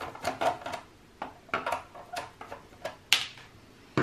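Light, irregular clicks and knocks of the Pioneer A-445 amplifier's front panel being handled and worked at its clips, with a sharper click about three seconds in.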